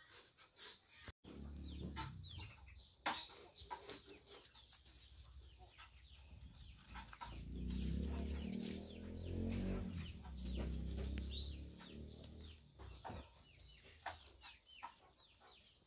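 Faint bird clucks and short chirps in the background, over a low muffled rubbing as a hand strokes a freshly bathed dog's wet fur close to the microphone. The rubbing is loudest near the middle.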